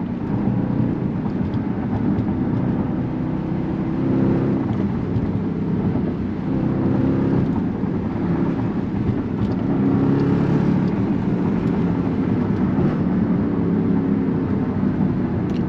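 2019 Jeep Grand Cherokee SRT's 6.4-litre HEMI V8 exhaust heard from inside the cabin while driving, with valved mufflers on the rear resonators and the mid mufflers cut. The engine note rises and drops several times.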